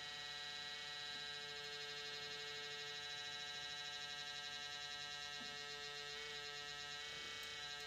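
A steady electrical hum made of several constant tones, the strongest a mid-pitched one, unchanging throughout.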